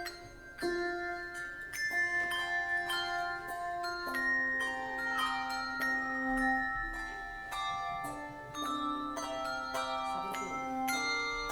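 Handbell choir playing a tune: bells struck one after another and left to ring, several notes sounding together.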